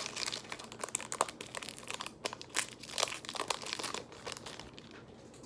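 Pokémon card pack packaging crinkling and tearing as it is opened by hand: irregular sharp crackles of plastic and foil wrapper, dying down about four seconds in.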